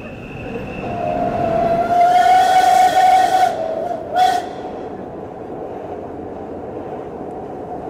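Steam locomotive whistle: one long blast, loudest about two seconds in, then a short toot about four seconds in, over the steady running noise of the moving train.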